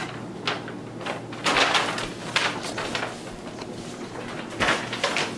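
A plastic shopping bag rustling and crinkling as a toddler handles it, in several irregular spells, the longest about a second and a half in.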